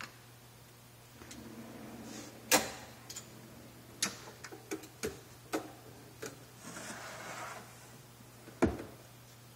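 A rack-mount monitor drawer rolling out on metal ball-bearing slides, a short rasp ending in a sharp knock as it reaches its stop. A run of metal clicks and knocks follows as the hardware is handled and the hinged dual-monitor lid is swung up, with another loud knock near the end.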